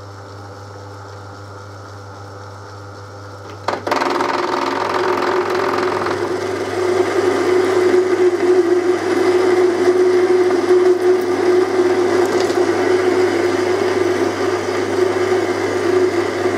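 Lathe running steadily, then about four seconds in a parting tool bites into spinning stainless-steel hex bar and keeps cutting, a much louder grinding hiss with a steady low humming tone as it parts off a nut.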